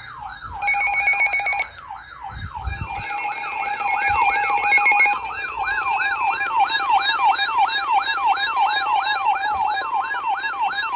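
Emergency weather alert tones playing over each other. A siren-like tone sweeps up and down about two and a half times a second. Buzzy data-burst tones cut in twice, and a steady attention tone runs beneath from about halfway through.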